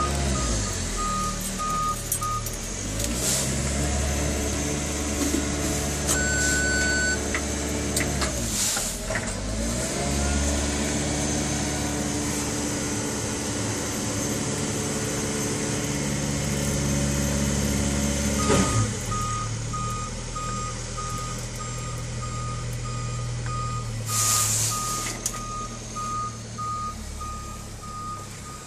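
JCB JS130 LC excavator's diesel engine heard from inside the cab, revving up and dropping back toward idle several times. A rapid, evenly repeating electronic beep sounds near the start and again for the last third.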